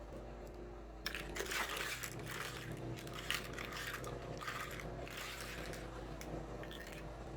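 Close-up crinkling and crunching handling noises in irregular bursts, starting about a second in, from small plastic toy play-set pieces being handled.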